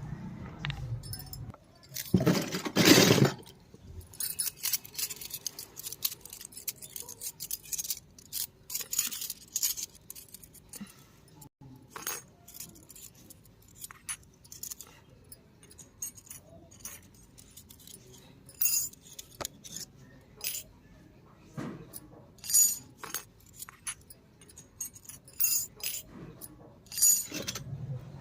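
Miniature toy kitchen pieces being handled, clicking and clinking against each other in many short, light taps. A louder, longer burst of handling noise comes about two seconds in.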